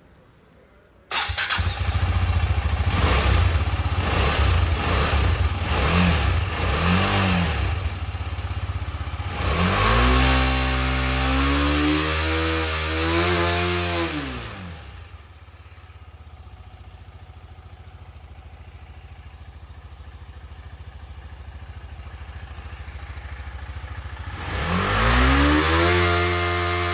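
KTM Duke 250 single-cylinder engine starting about a second in on its first start after a year dead with a freshly charged battery, then running. It is revved up and back down, settles to a quieter idle, and is revved again near the end.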